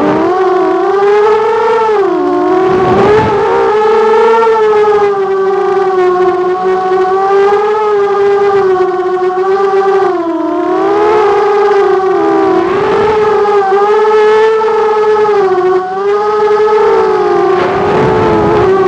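Motors of 250-class FPV racing quadcopters whining steadily, the pitch swelling and dipping as the pilots work the throttle through the course.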